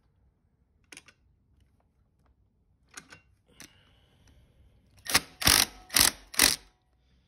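Cordless power driver run in four short bursts about half a second apart, snugging the bolts of a Honda CRF110 engine side cover. A few faint clicks come before, as the tool is set on the bolts.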